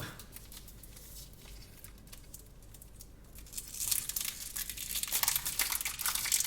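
Wrappers of individually wrapped Merci chocolates crinkling and tearing as they are opened by hand, starting about four seconds in after a quieter stretch.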